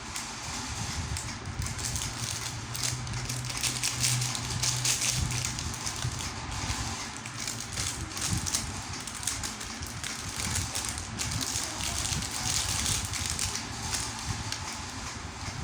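Continuous crackling rustle with many small clicks, the sound of hands handling a stainless steel chain-link watch and its packaging.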